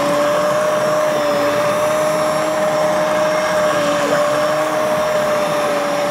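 Immersion blender running steadily submerged in a pot of soup, puréeing beans and spinach into the broth: a steady motor whine.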